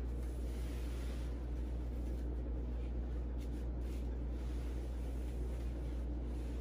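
Steady low hum of a quiet room, with faint scattered scratches and rustles.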